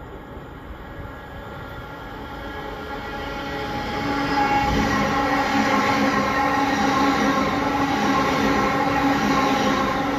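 A Greater Anglia electric multiple-unit train approaching and running past along the platform. Its noise builds over the first few seconds and is loud from about four seconds in, with a steady whine held through it.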